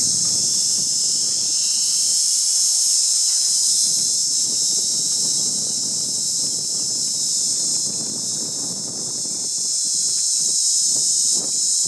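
Loud, steady high-pitched hiss, with a few soft knocks near the end.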